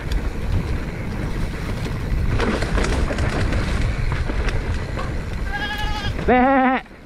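Steady low rumble of wind and tyres on the mic of a mountain bike riding a dirt trail. Near the end come two quavering, bleat-like calls, the second louder and lower.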